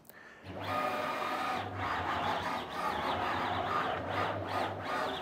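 AltMill CNC's stepper motors whining as they move the gantry and spindle through an outline run. The sound starts about half a second in, stays steady, and drops briefly several times.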